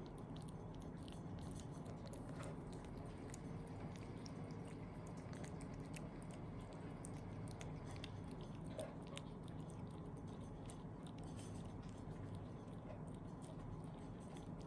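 A pet chewing and eating food: many short, crisp clicks and crunches scattered throughout, over a steady low hum.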